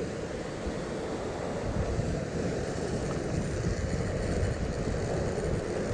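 Steady rush of wind on the microphone mixed with surf breaking against the rocks.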